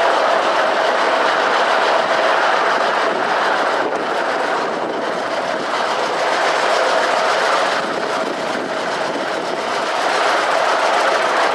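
Miniature railway train running, heard from aboard: steady rattle and rumble of wheels on the track, with a steady tone underneath.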